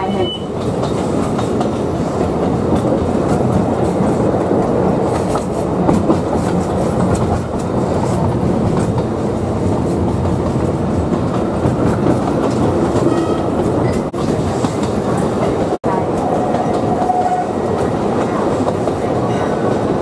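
Alishan Forest Railway narrow-gauge train running: a steady rumble of wheels on the rails with a clickety-clack of rail joints. The sound breaks off for a split second about 16 seconds in.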